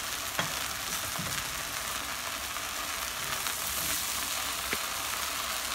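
Chicken pieces sizzling steadily in hot ghee and oil in a pan, with a couple of light clicks as a slotted spoon lifts pieces out.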